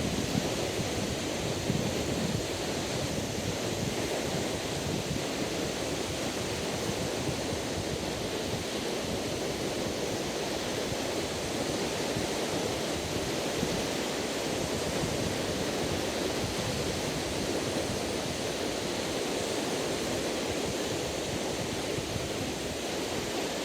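Lake Michigan waves washing steadily onto the beach, with wind buffeting the microphone.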